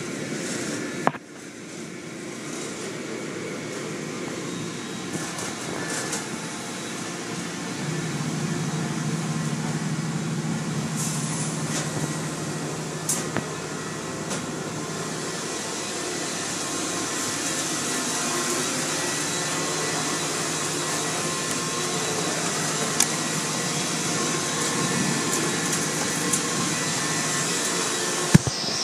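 Automatic car wash heard from inside the car: a steady rush of water spray and machinery hum from the cloth-curtain washing equipment, growing brighter and hissier toward the end. A sharp knock about a second in and a couple of lighter clicks stand out.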